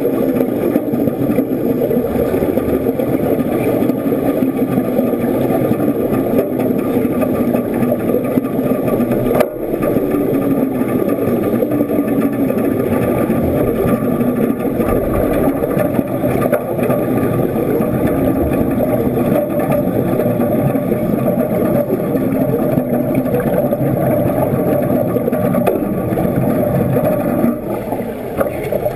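Steady muffled underwater rumbling and bubbling from a diver at work in a water-filled tank during wet welding, heard through a camera's waterproof housing. There is a single click about nine seconds in.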